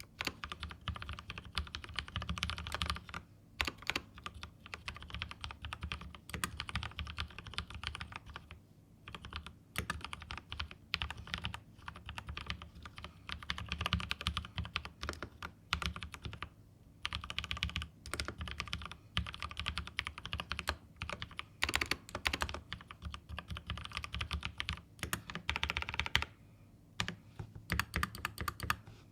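Steady typing on a mechanical keyboard with lubed 'Holy Razer' tactile frankenswitches (Halo True stems in Kailh Razer Green housings) under GMK Honeywell keycaps: a dense run of keystroke clacks with a few brief pauses.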